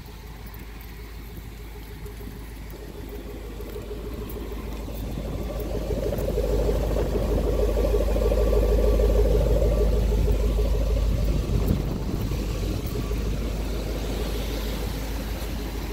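2003 Dodge Ram's 5.7-litre Hemi V8 idling through its dual exhaust tips, louder from about six seconds in while heard close to the tailpipes, then easing off.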